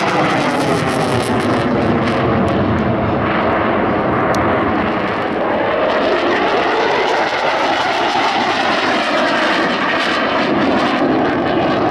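F-16 fighter jet's engine, loud and steady, with a slow sweeping phasing in its tone as the jet manoeuvres overhead.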